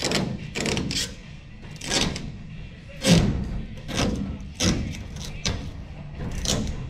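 Background music with loud thuds about once a second.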